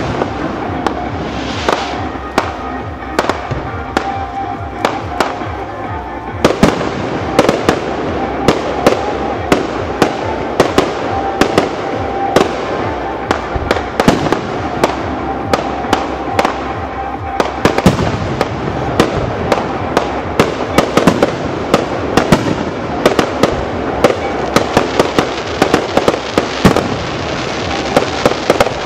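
Fireworks display: a dense, irregular run of sharp bangs from bursting shells over continuous crackling, growing busier a few seconds in.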